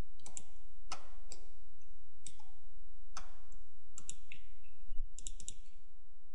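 Scattered sharp clicks from a computer mouse and keyboard, about a dozen in all, with a quick run of several about five seconds in. A steady low hum runs underneath.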